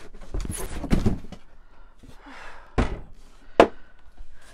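Cardboard and packing rustling and scraping as a heavy sewing machine is pulled out of its box, then two sharp thuds, the second the loudest, as the machine is set down on the table.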